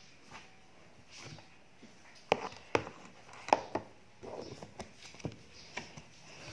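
Kitchen items being handled on a table: a few sharp knocks and clicks, several close together in the middle, as containers and utensils are moved and set down, with some soft rustling.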